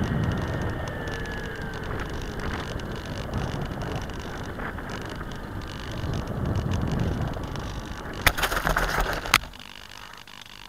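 Bixler foam RC plane on its landing approach: wind rushing over the onboard camera's microphone with a thin electric motor whine that drops in pitch about two seconds in. Near the end the plane touches down with a sharp knock, skids and scrapes across the dirt for about a second, and stops with a second knock.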